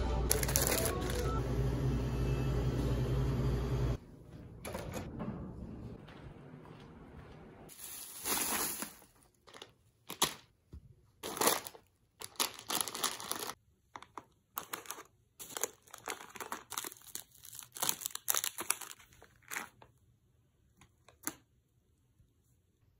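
A steady low store hum while a cardboard box of crackers is handled on a shelf, cutting off suddenly after about four seconds; then a long run of short crinkles from plastic snack packets being set down one by one on carpet.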